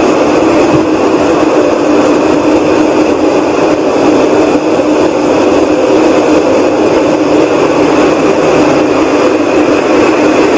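A loud, steady whooshing rumble from the sky, between a hiss and a rumble, with no visible source. It holds unbroken throughout.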